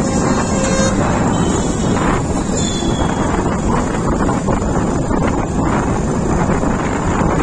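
Wind rushing over the microphone of a moving Bajaj Pulsar NS motorcycle, mixed with its engine running steadily at a slow cruise.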